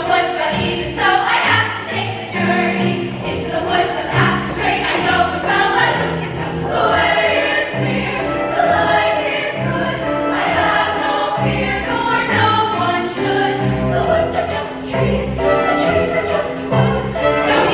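Women's show choir singing in harmony, with an instrumental accompaniment whose bass notes change in a steady rhythm under the voices.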